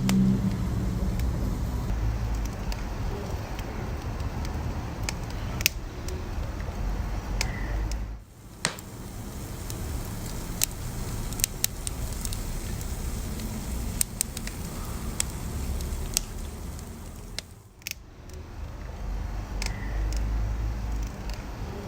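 Wood fire burning with a steady low roar and scattered sharp crackles and pops. The roar drops away briefly twice.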